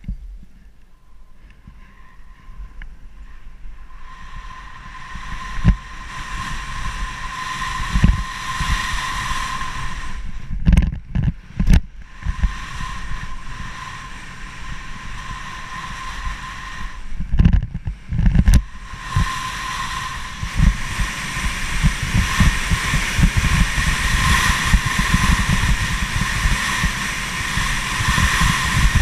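Wind buffeting a body-mounted action camera's microphone while skiing fast downhill, with skis running over groomed snow. The rush builds from about four seconds in, dips briefly twice, and carries a thin steady whistle.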